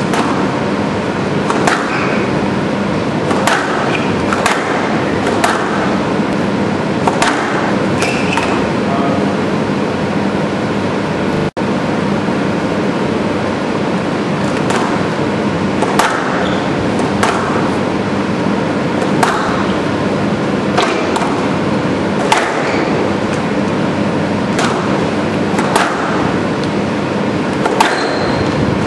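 Squash rally: the ball is struck by rackets and slams into the front wall in sharp cracks about every second, with short squeaks of shoes on the wooden court floor, over steady hall noise. The sound drops out for an instant about a third of the way through.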